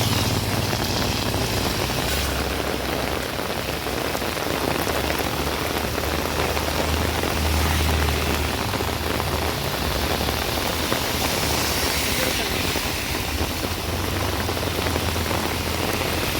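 Rain falling steadily, an even hiss of water, with a low rumble underneath.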